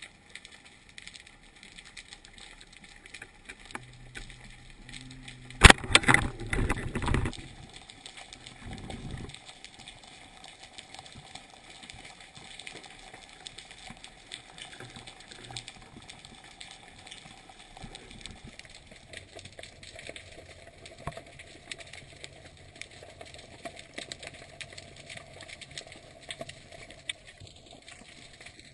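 Underwater ambience heard through a GoPro's waterproof housing: a steady fine crackle of clicks. About six seconds in there is a single loud sharp knock, followed by a second or so of clattering knocks, and a smaller knocking burst a few seconds later.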